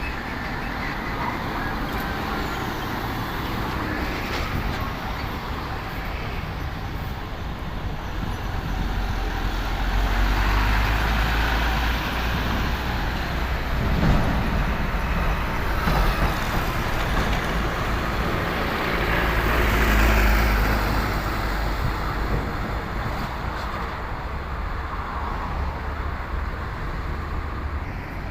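Heavy trucks and traffic passing on an uphill road, their diesel engines rumbling. The rumble swells loud twice as big vehicles go by, with a couple of sharp knocks in between.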